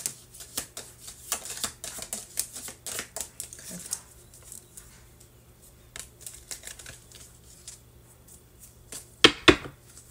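Round tarot cards shuffled by hand: a fast run of small clicks and flicks for the first few seconds, then a few softer card sounds, and two sharp taps close together near the end as cards are put down on the table.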